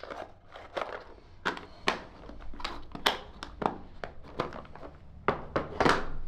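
Small tools and meter accessories being rummaged through and handled in a tool bag: irregular clicks, light knocks and rustling.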